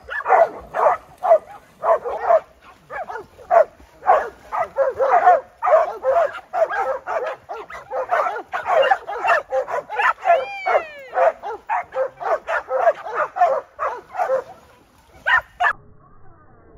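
A pack of dogs barking and yipping in quick succession, with one high whine that rises and falls about ten seconds in; the barking stops shortly before the end. The dogs are excited, waiting at the pool edge for a toy to be thrown.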